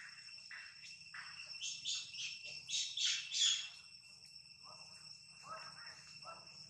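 Outdoor insect drone: a steady, shrill chorus held at several high pitches. Over it comes a run of short scratchy sounds of unclear source, the loudest a little past a second in to about three and a half seconds in.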